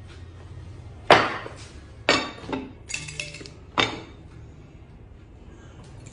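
Ceramic bowl and plate of a xóc đĩa set knocking and clinking together in about five sharp strokes between one and four seconds in. The one near three seconds in rings briefly.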